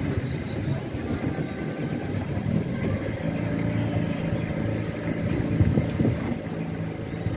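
Motor launch's engine running steadily, heard from aboard with water and wind noise, with a brief thump about six seconds in.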